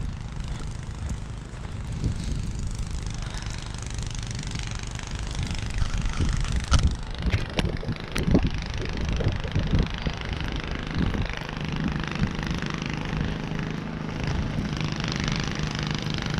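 Strong snowstorm wind buffeting the microphone: a gusty low rumble with a few knocks about halfway through.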